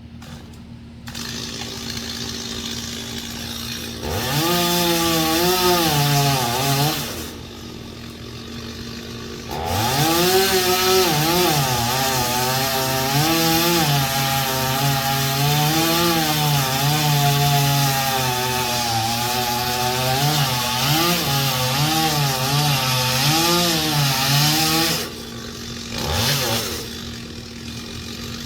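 Chainsaw engine revving and cutting wood, its pitch dipping and recovering as the chain loads up in the cut. It drops back toward idle about seven seconds in and again near the end, then revs up once more, over a steady low hum.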